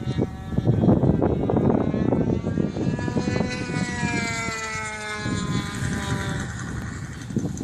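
Radio-controlled model airplane flying overhead, its motor and propeller tone dropping in pitch as it passes, then fading near the end. A gusty low rumble of wind on the microphone runs underneath and is the loudest part.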